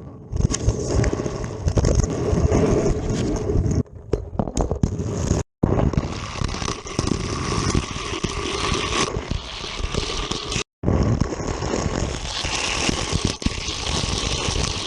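A toy car running along plastic Hot Wheels track: a dense, continuous rattle and scrape of small wheels and joints clicking over the track. The sound breaks off sharply twice for a split second.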